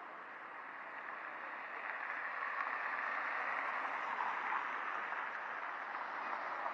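Steady hiss of road traffic in the distance, growing slightly louder after the first second.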